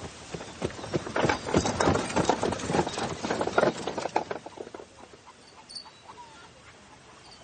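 Horse's hooves clip-clopping as a horse trots past pulling a wooden cart, swelling about a second in and fading after about four and a half seconds.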